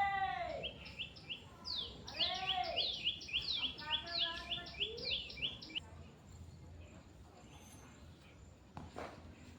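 Birds calling: a fast run of short, falling chirps, several a second, lasting about five seconds. Two louder drawn-out calls that rise and fall come in near the start and about two seconds in. It goes much quieter after that.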